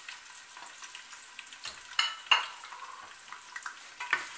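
Chopped onions sizzling in hot oil in a stainless-steel pressure cooker as they are stirred, the start of browning them. Two sharp knocks come about two seconds in, and a smaller one near the end.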